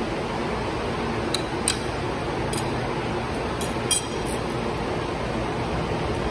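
Carabiners and a metal rigging plate clinking together in the hands, about six short sharp clinks. The strongest comes a little before the four-second mark and rings briefly. Steady background noise runs underneath.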